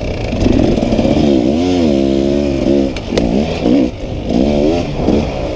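Dirt bike engine revving hard, its pitch dropping and climbing again several times as the throttle is rolled off and back on through the turns.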